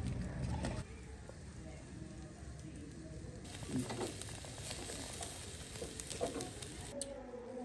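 A wood bonfire crackling, then, after a cut about three and a half seconds in, chicken on metal skewers sizzling over glowing charcoal, with a few sharp clicks as the skewers are handled.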